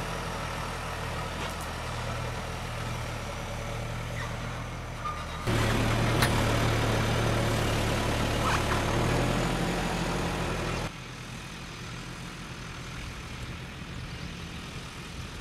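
Tractor engine running steadily while dragging a chained log on a three-point skidding winch. It gets suddenly louder about five seconds in and drops back suddenly about eleven seconds in.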